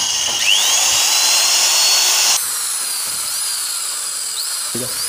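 Electric hand drill running a 5 mm bit into a broken 6 mm steel bolt stuck in a motorcycle engine's aluminium casting, drilling the bolt out. It makes a steady high whine, which drops slightly in level about halfway through.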